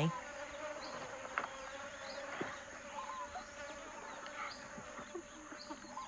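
Forest ambience: insects droning with a steady high whine, with a few short chirps and a couple of faint clicks.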